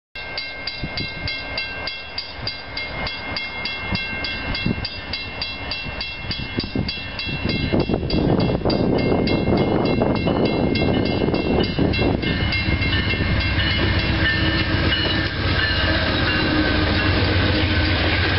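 Grade-crossing warning bell ringing fast and evenly, about four strikes a second, as an Amtrak Downeaster passenger train approaches. From about eight seconds in, the train's diesel locomotive and coaches pass close by: loud, steady wheel-on-rail noise with a low hum that drowns out the bell.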